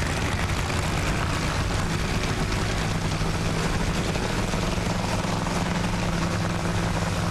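Supercharged nitro Funny Car engines running steadily at idle, a loud, even rumble with rapid pulsing and no rise or fall in pitch.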